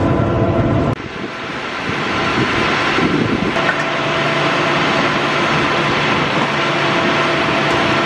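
Combine harvester running steadily alongside, a loud even mechanical noise with faint steady tones in it. About a second in, the sound changes abruptly and loses its deep rumble.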